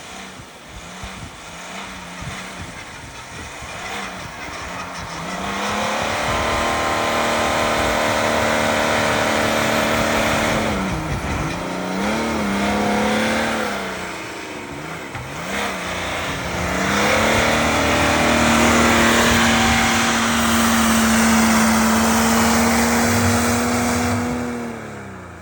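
Toyota off-road vehicle's engine pulling hard under load, revving up and down, dipping twice and then holding high revs for several seconds before winding down near the end, over a steady rushing noise.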